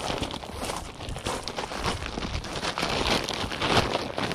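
Footsteps crunching on gravel, with the rustle and crinkle of a large woven-plastic IKEA bag being carried and pulled open.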